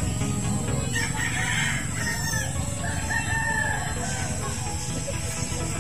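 A rooster crowing, over steady low background noise.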